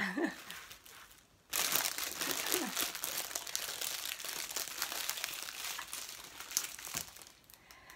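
Crinkling, crackling rustle with many small clicks, starting about one and a half seconds in and dying away near the end.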